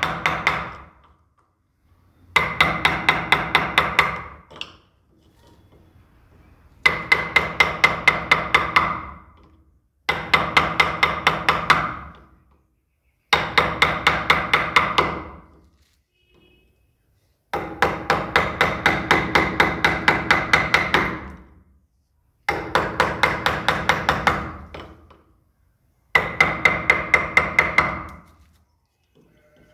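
Hand carving chisel being driven into wood with a hammer: quick runs of light blows, about six a second, each run lasting around two seconds, with short pauses between, about eight runs in all.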